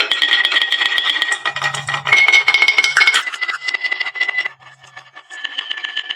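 Marbles rolling and clattering down a wooden marble run: rapid clicks and knocks over a steady ringing tone that shifts pitch a few times. The clatter drops away for a moment about four and a half seconds in, then picks up again.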